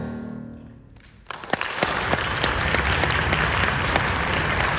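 The final sung and played chord fades away, then a little over a second in the audience breaks into applause, many hands clapping at a steady level.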